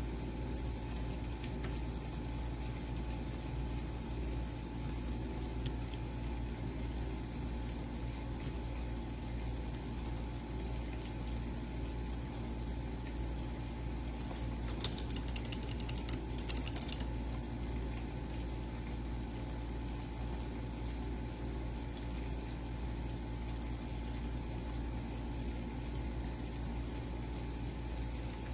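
Steady low hum of room noise. About halfway through comes a couple of seconds of rapid clicking, like typing on a computer keyboard.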